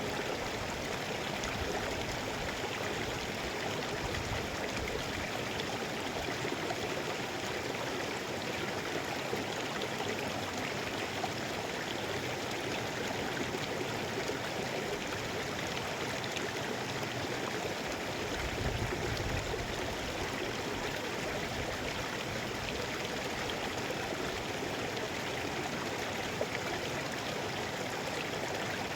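Mountain river flowing: a steady rush of water, with a brief low rumble about two-thirds of the way through.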